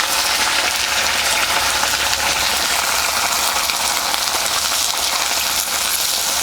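Chopped potatoes sizzling steadily in hot mustard oil in a kadai.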